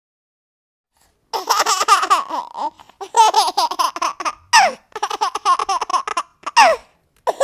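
A baby laughing: several separate bursts of high-pitched, wavering laughter with short breaks between them, starting after about a second of silence.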